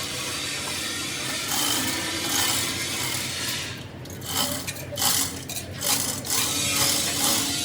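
Metal workshop sounds from hands and tools on transmission parts: scraping and rubbing, then a run of short sharp clinks and knocks in the second half.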